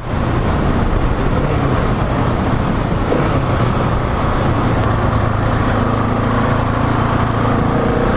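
Steady wind rush on the microphone at highway speed, with the Husqvarna 701 Supermoto's single-cylinder engine droning faintly underneath on its stock exhaust. The engine note grows more distinct near the end.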